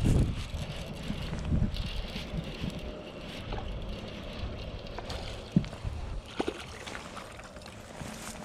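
Water sloshing against a small boat, with wind rumbling on the microphone, loudest right at the start. A few light knocks come from handling the rod and baitcasting reel while a hooked bass is reeled in, the sharpest a little past halfway.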